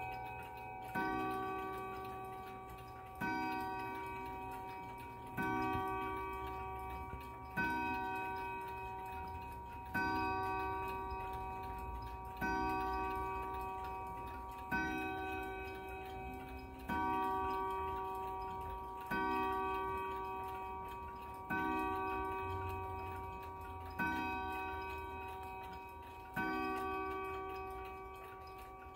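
Howard Miller triple chime mantel clock striking twelve for the hour: twelve single struck notes about two and a half seconds apart, each ringing and fading before the next. The clock's ticking runs faintly underneath.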